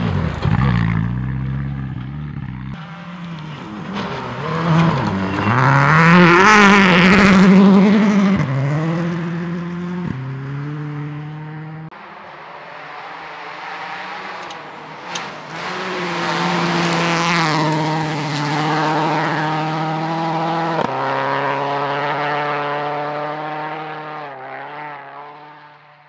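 Rally car engines at full throttle as the cars pass at speed, pitch climbing and dropping through repeated gear changes. The loudest pass is about 5 to 8 seconds in, and the sound fades out near the end.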